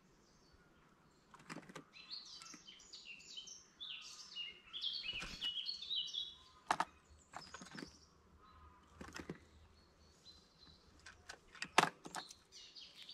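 Small songbirds singing in quick runs of high chirping notes, in two or three bursts. About five sharp knocks fall between them, the loudest near the end.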